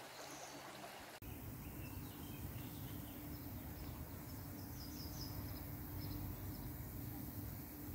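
Faint outdoor background noise with a steady low hum, and a few faint high bird chirps around the middle. The background changes abruptly about a second in.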